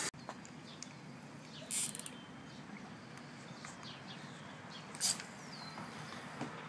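Faint outdoor quiet with a few thin bird chirps and two short rustles, about two and five seconds in.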